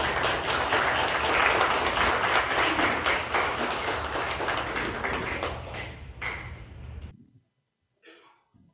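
Church congregation applauding, many hands clapping, the applause gradually thinning and then cutting off suddenly about seven seconds in.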